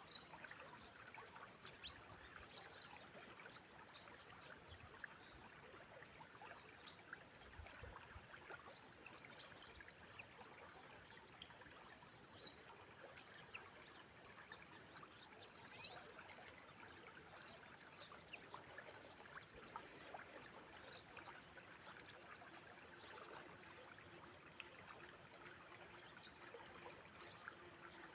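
Inhul river flowing: a faint, steady rush of water with scattered small splashes and trickles.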